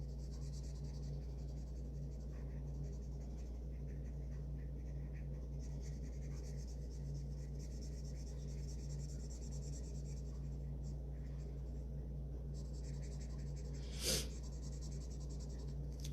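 Felt-tip marker scribbling back and forth on paper, colouring in a shape with quick rubbing strokes, with a couple of brief pauses and a single sharp tap near the end. A steady low electrical hum runs underneath.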